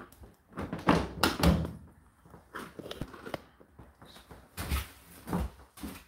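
Plastic door of an Indesit condenser tumble dryer being pushed shut, with a series of knocks and thuds as it is closed and latched.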